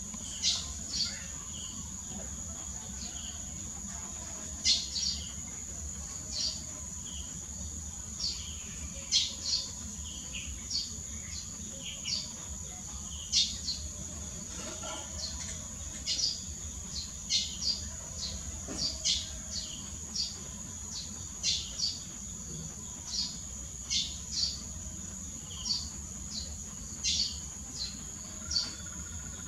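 Small birds chirping in short, repeated calls, one or two a second, over a steady high-pitched insect drone.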